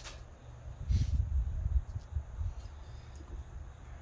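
Crickets chirping steadily in the background, with a sharp click at the very start and low dull thumps for about a second from about a second in.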